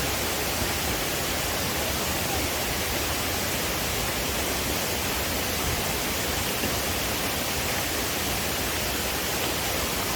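A steady, even rushing noise that holds unchanged, with no clear events in it.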